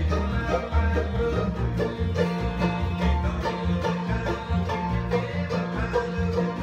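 Bluegrass band playing: rapid banjo picking over strummed acoustic guitars and a plucked upright bass line.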